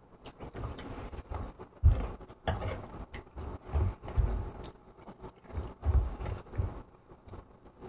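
Eating from a frying pan: a fork clinking and scraping against the pan as pasta is picked up. About half a dozen dull, low thumps are the loudest sounds, with short clicks between them.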